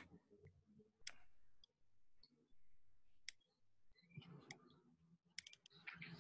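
Near silence: faint room tone with a handful of sharp, faint clicks, ending in a quick cluster of them.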